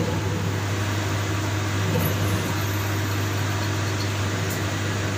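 CNC lathe running with a steady hum, the spindle turning while a parting-off tool cuts an aluminium workpiece dry, without coolant.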